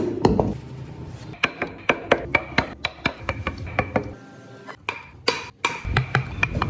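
Hammer striking a chisel, a quick series of sharp taps with a short metallic ring, pausing briefly about four seconds in before the taps resume.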